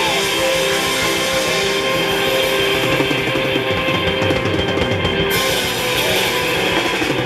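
Live band playing an instrumental passage without vocals: drum kit, electric guitar and canjo.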